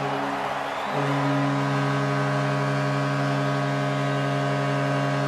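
Vancouver Canucks' arena goal horn sounding over a cheering, clapping crowd, signalling a home goal. The horn drops out briefly under a second in, then sounds again and holds steady.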